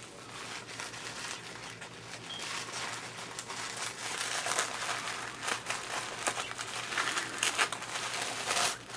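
Gift wrapping crinkling and rustling as a wrapped package is opened by hand, with many irregular sharp crackles that grow louder a few seconds in.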